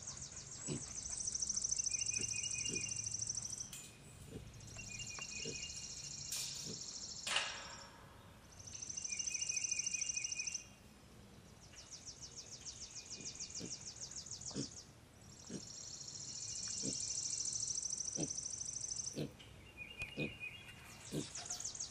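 Outdoor chorus of calling insects: a high, fast, even pulsing buzz in repeated bursts of two to three seconds, with shorter pulsed chirps in between.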